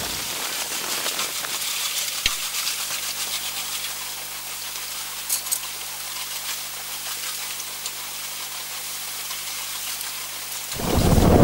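A steady, thin hiss of wind and water rushing past an RNLI inshore lifeboat underway, with little low sound in it. Near the end, a sudden loud low rumble of wind buffeting the microphone cuts in.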